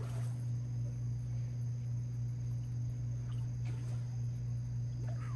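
A steady low hum, with faint insects chirring high above it.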